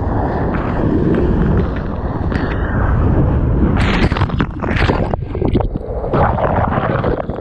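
Water rushing and wind buffeting a GoPro's microphone at the surface of the surf while bodyboarding, with several loud splashes from about four seconds in.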